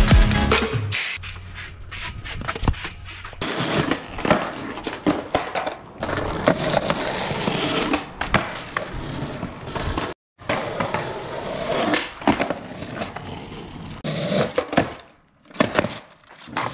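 Skateboard rolling on hard ground, with repeated sharp clacks and slaps of the board as tricks are popped and landed. The sound cuts out abruptly about ten seconds in and again near the end, then resumes.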